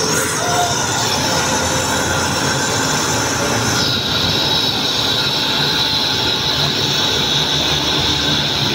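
Angle grinder cutting into a concrete wall: a steady high whine over gritty grinding noise. The whine drops a little in pitch about four seconds in, as the disc bites.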